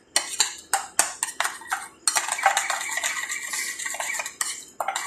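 Metal fork beating a cream topping mixture in a ceramic bowl, clinking and scraping against the bowl. There are a few separate strikes at first, then about two seconds of fast, steady beating, then a few more strikes near the end.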